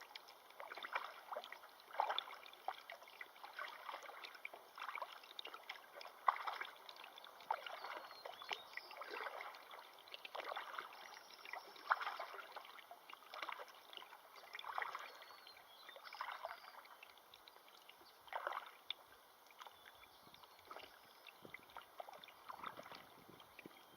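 River water splashing in short, irregular splashes every second or two over a steady low wash of moving water.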